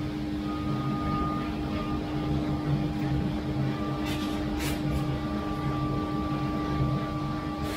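Steady hum of warehouse machinery, with short scraping swishes of green coffee beans being scooped: three close together about four seconds in and one more at the end.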